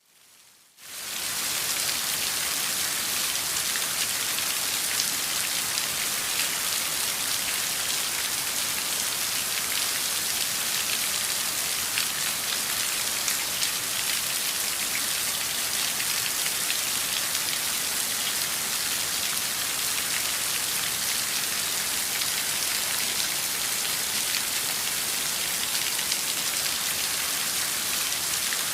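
Heavy rain falling in a steady downpour, a dense hiss flecked with individual drops, fading in over the first second.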